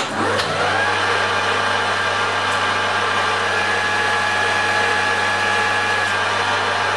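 Metal lathe switched on, spinning up over the first second, then running steadily with a low hum and a high whine.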